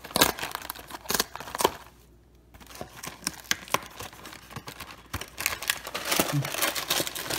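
Cardboard frozen-food carton being torn open along its tear-strip tab: scattered crackling and tearing of the paperboard, with a short pause about two seconds in. Denser crinkling near the end as the plastic-wrapped sandwich is pulled out of the box.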